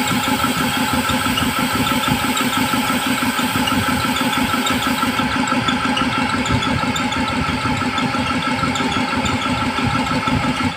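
Old belt-driven piston air compressor running under load, its electric motor and pump going with a rapid, even pulse as it refills the tank toward 120 PSI after cutting back in automatically.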